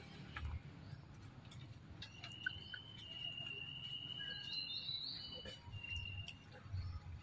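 A thin, high, steady whistling call starts about two seconds in and holds for a few seconds, then breaks into shorter pieces near the end, over light rustling and small clicks.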